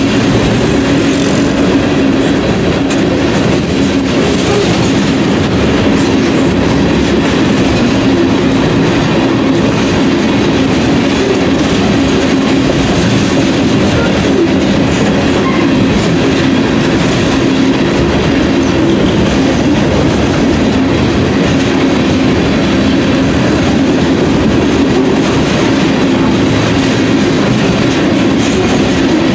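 Freight train of covered hopper cars rolling past close by: a loud, steady rolling noise of steel wheels on the rails, with a constant hum underneath.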